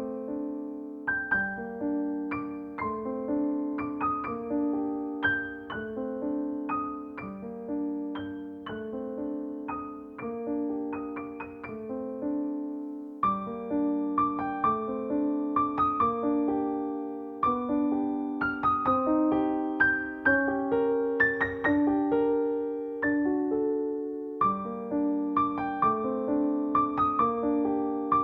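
Background piano music: a gentle, steady pattern of repeated chords and melody notes, each note struck and fading.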